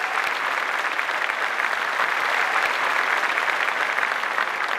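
Studio audience applauding steadily, many hands clapping at once.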